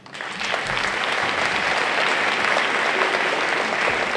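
Audience applauding: many hands clapping, building up quickly over the first second and then holding steady.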